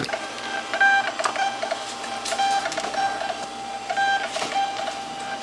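Rollo thermal label printer feeding out a strip of shipping labels. Its feed whines in a steady tone that pulses in short runs, with a few clicks.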